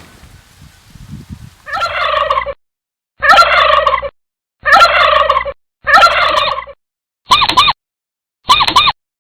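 Farm poultry calling: six separate rapid, warbling calls, spliced with dead silence between them. The first four are longer, the last two short.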